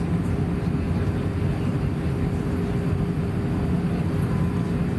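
Steady cabin roar of an Airbus A320 airliner on its descent toward landing: engine and airflow noise heard from a window seat, with a faint steady hum under it.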